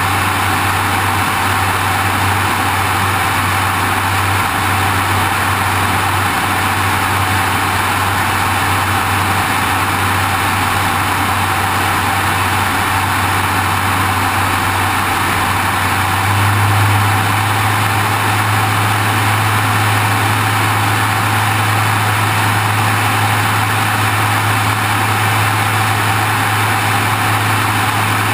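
Airplane in flight heard from a wing-mounted GoPro Hero2: a steady low engine drone under a constant rush of wind over the camera housing. About two-thirds of the way through, the drone steps up slightly in pitch and loudness.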